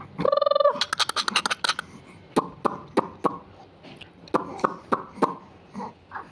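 Young infant crying: one short high wail that breaks off within the first second, followed by a quick run of clicks and then scattered short clicks and fussing sounds as the crying stops.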